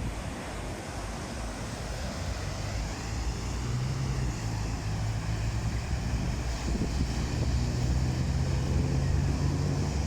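Sea surf with wind buffeting the microphone. From about three and a half seconds in, a low steady motor hum joins it, and the whole grows slowly louder.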